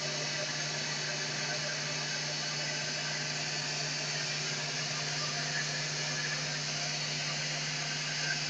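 Steady hiss with an even low hum underneath, unchanging throughout.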